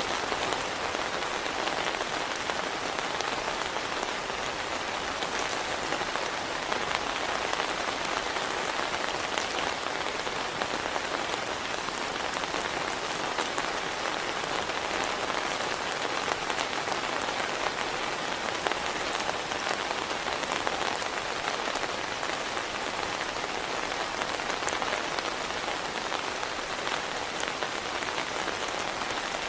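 Heavy rain falling steadily: a dense, even patter of many small drop hits on a surface.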